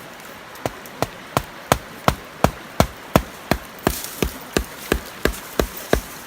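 A steady series of sharp chopping or hammering strikes, about three a second, starting under a second in.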